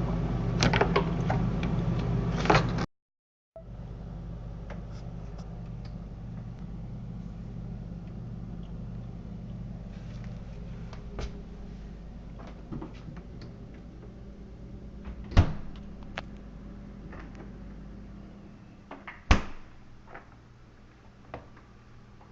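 Plastic clicks and knocks as refrigerator parts and the bottom grill are handled and fitted, the two loudest about 15 and 19 seconds in, over a steady low mains hum that drops away near the end.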